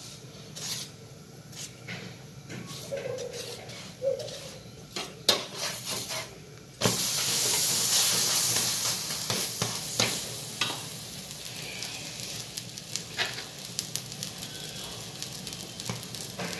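Butter sizzling on a hot tawa under a frying aloo paratha, with a spatula scraping and tapping the pan. About seven seconds in, as the buttered paratha is turned over onto the pan and pressed down, a loud sizzle starts suddenly, then eases to a steady lighter sizzle.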